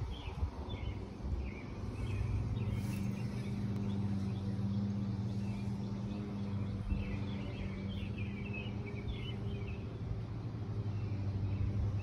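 A steady low mechanical hum with birds chirping, in a short spell at the start and again about two-thirds of the way through.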